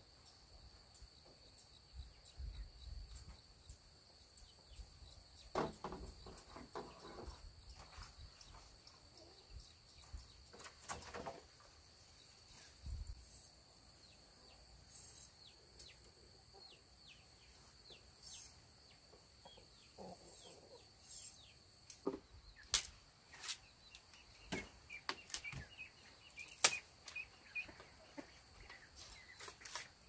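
Scattered sharp knocks and clicks, coming thick and fast in the last third, over a faint steady high-pitched hum, with a few short bird chirps.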